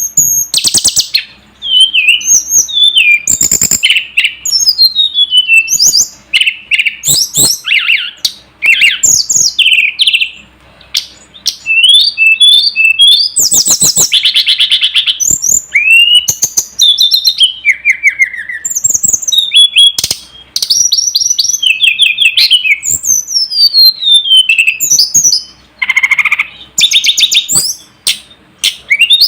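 Tledekan gunung (sulingan gunung) songbird singing continuously: a fast, varied song of high whistles, quick down-slurred chirps and buzzy rattling trills, with only brief pauses between phrases.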